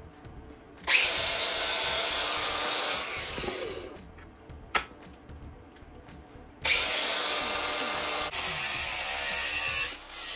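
Cordless angle grinder with a sanding disc, run in two bursts of about three seconds each, grinding metal. The first burst winds down with a falling whine as the disc spins down. The second cuts off just before the end, and a single click falls between them.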